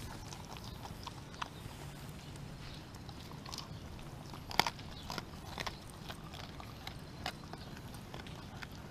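A dog chewing a whole raw chicken, its teeth crunching and cracking the bones in irregular sharp snaps, the loudest about four and a half seconds in.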